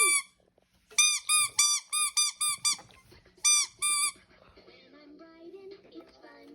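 About a dozen short, high-pitched squeaks in quick succession, each rising then falling in pitch, then two more after a short pause. A faint tune comes in about halfway through.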